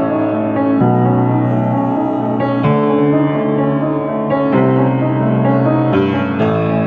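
Piano playing slow, sustained chords, with a new chord struck about every two seconds.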